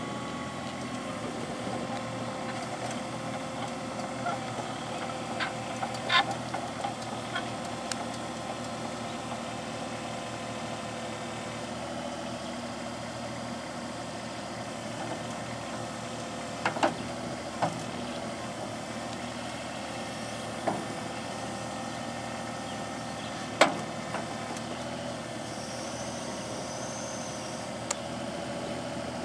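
Compact excavator's diesel engine running steadily, with a few sharp knocks scattered through, the loudest about six seconds in and again near the three-quarter mark.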